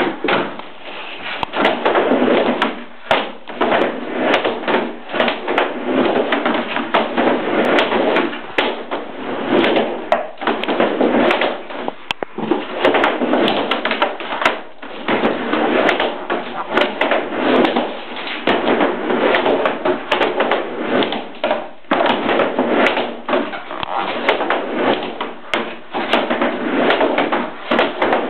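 Skateboard wheels rolling on plywood ramps, with many clacks and knocks from the board and trucks hitting the wood, in a small room.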